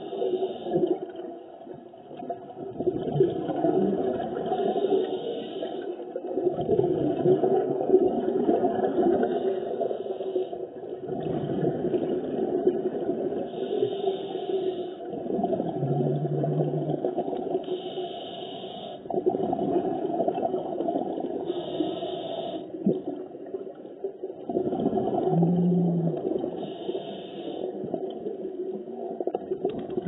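Underwater sound heard through a camera housing: a diver's exhaled air bubbling and gurgling, muffled, with a hiss of breath returning every four seconds or so.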